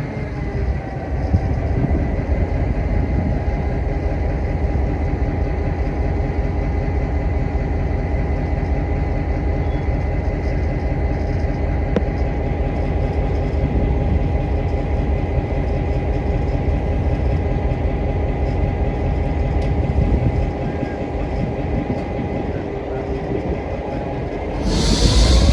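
Slow-moving freight train, a diesel locomotive running with a steady low rumble and a thin steady whine that fades out a few seconds before the end. Near the end a sudden, louder rush of noise sets in.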